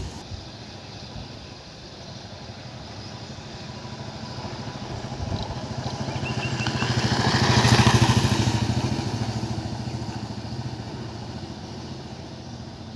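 Motorcycle engine running on the move. The engine and road noise swell to their loudest about eight seconds in, then fade again.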